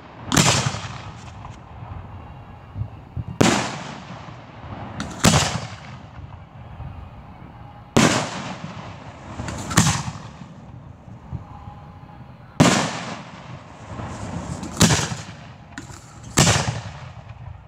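Aerial firework shells bursting overhead: about eight loud booms, one to three seconds apart, each echoing away before the next.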